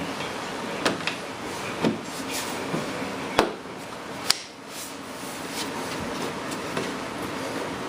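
Scattered sharp clicks and knocks, about five of them, from parts and tools being handled while fitting pieces of the RC jet's body, over a steady background hiss.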